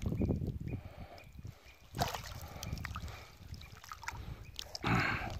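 Water sloshing and dripping around a nylon cast net being hauled in by hand while wading, with louder splashes about two seconds in and again near the end.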